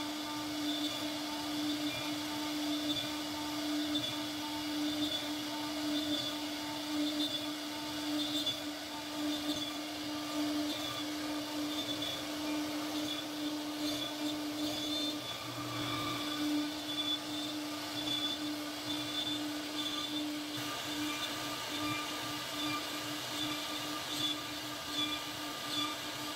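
CNC router spindle running at a steady pitch while its carving bit cuts a relief pattern into a wooden panel, the steady whine over the noise of cutting.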